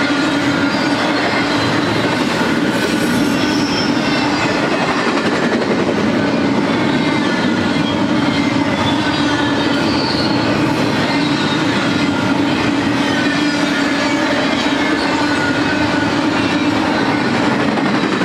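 Double-stack intermodal freight cars rolling past close by: a steady, loud rumble and rattle of steel wheels on the rails, with faint thin high whines drifting down in pitch over it.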